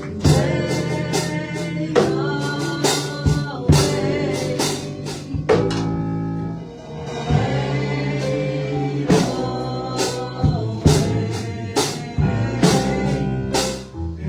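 Live gospel praise music: a band with a drum kit playing under sustained chords, with singing, and a short lull about halfway through.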